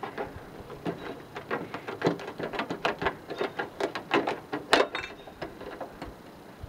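Hand tin snips cutting a downspout hole in a rain gutter: a series of irregular, crisp snips, a few a second, the loudest a little under five seconds in.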